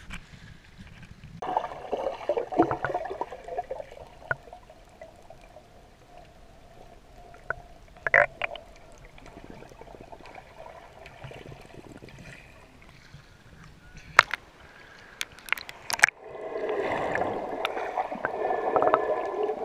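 Underwater sound picked up by a submerged camera: muffled water movement and gurgling with scattered sharp clicks, then louder, denser bubbling in the last few seconds as bubbles stream up from a freediver's fins.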